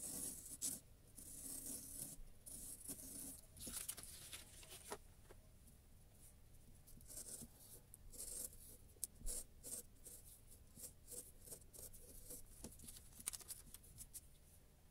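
Blade of a compass-type circle cutter scoring round through paper: a dry scratching, dense over the first few seconds, then sparser short scrapes and ticks.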